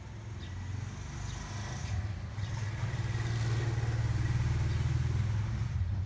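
Low engine rumble of a motor vehicle, building over the first few seconds and loudest past the midpoint, then dropping off sharply at the end.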